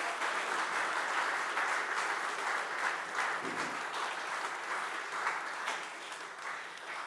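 A congregation applauding: many hands clapping together, fading gradually and dying away near the end.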